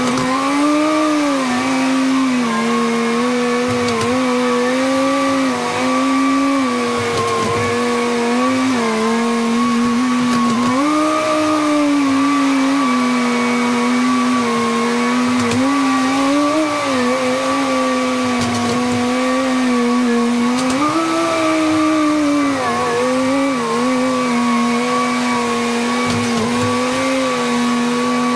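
A vehicle or farm machine engine running under changing load, with a strong steady whine that swells up in pitch and settles back every few seconds.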